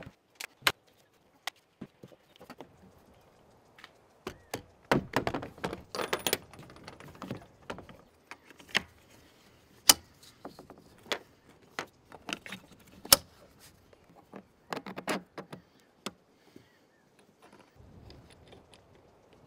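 Plastic Yakima snap-around clamps and loose mounting hardware being handled and fitted around a rifle case handle and a round roof bar: a string of sharp clicks and snaps with a few bursts of rattling clatter.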